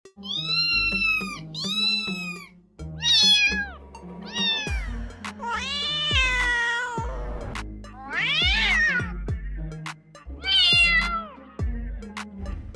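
A kitten meowing repeatedly: about seven high meows, some short and a couple drawn out, over background music with a low stepping bass line.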